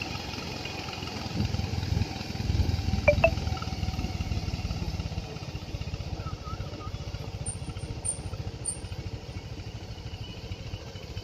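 An engine running steadily with a fast, even low pulsing, a little louder in the first few seconds, and a sharp click about three seconds in.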